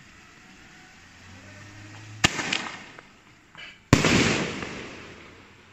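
Single-shot consumer firework tube firing: a sharp bang as the shell is launched about two seconds in, then a louder bang as it bursts overhead just under two seconds later, trailing off over a second or so.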